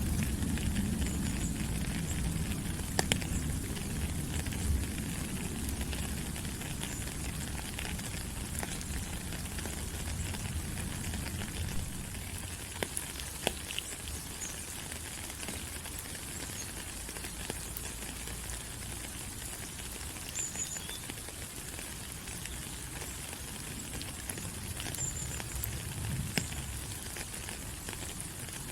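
Steady rain falling on rainforest leaves: a dense, even hiss with scattered sharp drop clicks and a few faint high chirps. A low rumble under it fades out about twelve seconds in.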